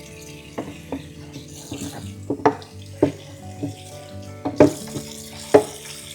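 Several short, sharp knocks and clinks of household items being handled and set down, irregularly spaced, over soft background music with sustained tones.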